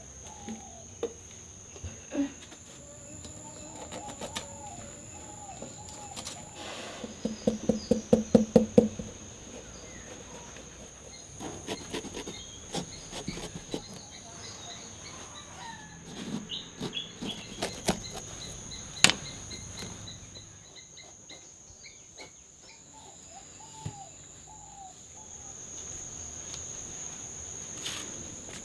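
Outdoor ambience: a steady high-pitched insect drone with scattered bird calls, a quick run of about ten loud chirps about seven seconds in, and a few sharp clicks.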